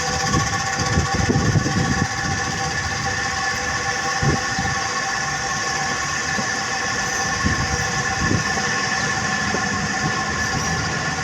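Loud, steady city street noise: a mechanical whine of several held tones over a low rumble, with low knocks and thuds in the first few seconds.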